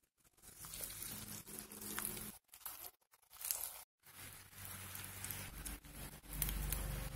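Fried potato slices sizzling in shallow oil in a nonstick frying pan as they are laid in, a crackling hiss that drops out twice briefly. A low steady hum runs underneath.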